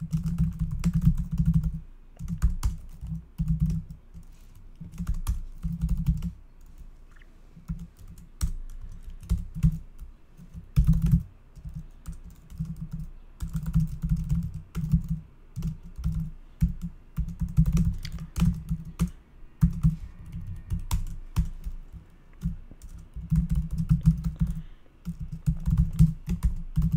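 Typing on a computer keyboard in quick runs of keystrokes broken by short pauses.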